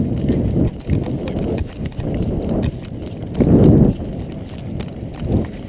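Footsteps through leaf litter and brush close to a body-worn camera, with clothing and gear rustling in a rough rhythm; a louder rustle about three and a half seconds in.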